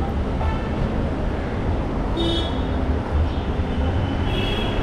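Street traffic noise: a steady rumble of vehicles, with a brief high horn beep about two seconds in and another near the end.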